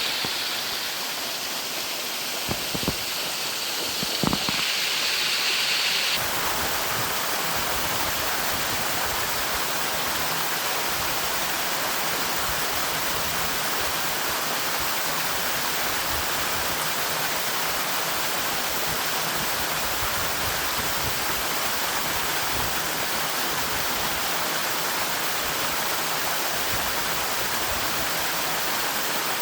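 A waterfall: steady rushing and splashing water. There are a few short knocks in the first few seconds, and about six seconds in the sound changes abruptly to a fuller, even rush.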